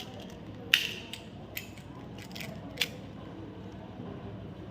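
Chocolate packaging being handled and opened, giving a few sharp, short crackles and clicks, the loudest about three-quarters of a second in.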